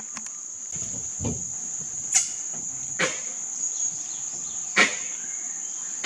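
A steady, high-pitched insect drone, broken by four sharp clicks at irregular intervals.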